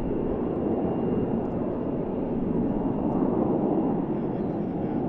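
Steady rumble of an F-15 fighter jet's twin engines as it climbs away just after takeoff, swelling slightly about three seconds in.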